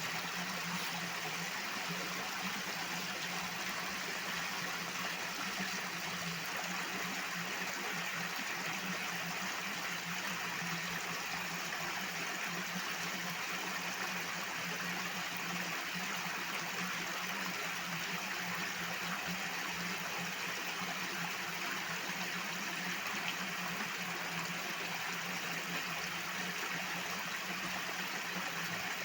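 Water rushing and flowing in a loud, steady stream, with a constant low hum beneath it.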